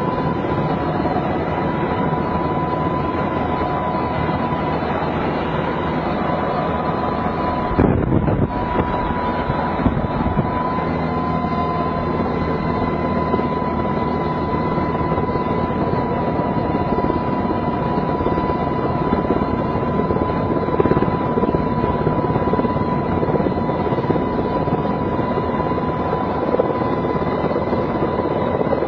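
Military helicopter heard from inside the cabin with the door open: steady rotor and engine noise with a constant high turbine whine, mixed with wind rush on the microphone. About eight seconds in comes a brief louder burst of low noise.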